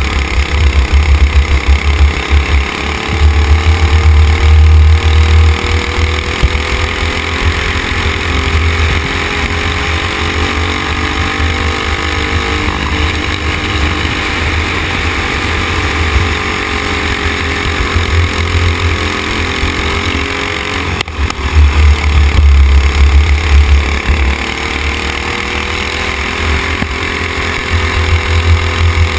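Racing kart's engine running hard at racing speed, its pitch rising and falling as the kart brakes and accelerates through corners. A heavy low rumble, typical of wind buffeting the onboard microphone, comes and goes over it.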